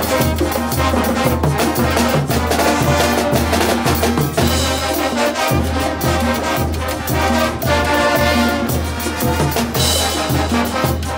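Bolivian brass band playing live: trumpets and trombones carry the melody over a steady low drum beat about twice a second, with cymbals and snare drums.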